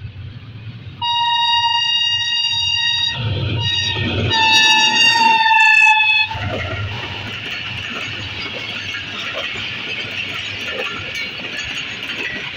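Pakistan Railways AGE 30 diesel-electric locomotive sounding its horn as it passes at speed: a long blast about a second in, a brief one, then a final blast that is the loudest, with the engine's low rumble beneath. From about six seconds on the passenger coaches rush by with a steady rolling rail noise.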